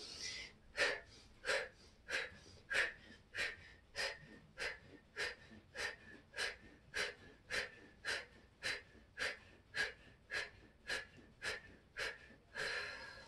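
A woman's sharp, forceful breaths out through the mouth in the yoga 'breath of fire', evenly paced at about three every two seconds. One longer breath comes near the end.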